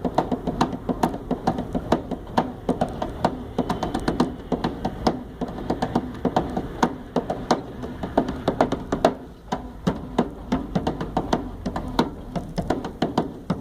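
Percussion jam: quick rhythmic knocks and taps, several a second, played along with a running washing machine whose steady low hum sits underneath.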